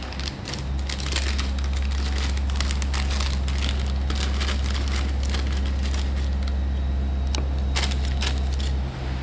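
Clear plastic zip bag of pump seals crinkling as it is opened and the rubber and brass seal rings are shaken out, with light clicks as they drop onto the cloth. A steady low hum runs underneath, dipping briefly near the end.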